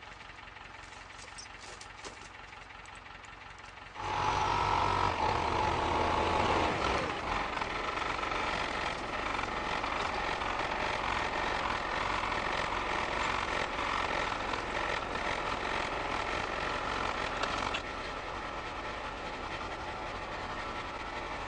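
A quiet first few seconds, then an engine starts running steadily about four seconds in and keeps going, easing slightly in level near the end.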